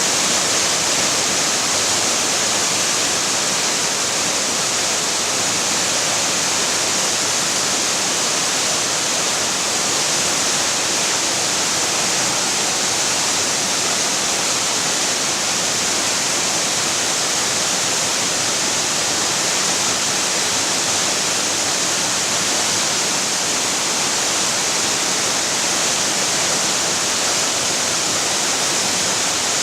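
Waterfall on a mountain river, water falling and splashing in a steady, even rush with no change throughout.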